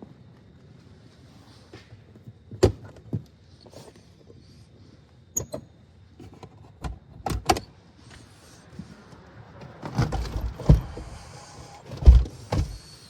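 A run of scattered knocks, clicks and clunks, as of parts and tools being handled on a vehicle. They come singly at first, then close together and loudest near the end.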